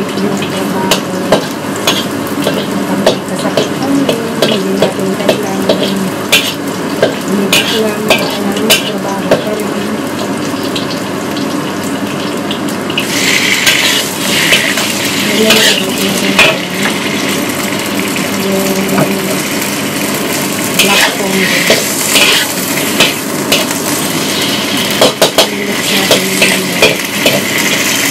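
Stir-frying in a wok: a metal spatula scraping and clinking against the pan. About 13 seconds in, food is tipped into the hot oil and a loud sizzle starts, continuing under the clinking strokes.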